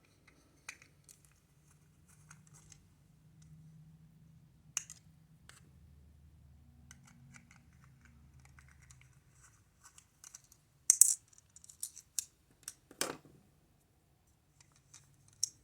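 Small screws being backed out of a hard plastic toy by hand: scattered faint clicks and scrapes of the driver bit and plastic. There is a flurry of sharper clicks about eleven seconds in and a single louder knock about two seconds later.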